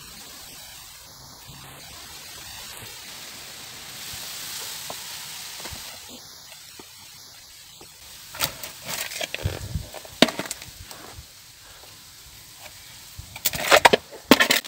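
A steady soft hiss, then from about eight seconds in irregular crackling rustles and knocks, loudest near the end, as the camera is handled and brushes through the leaves of potted chili plants.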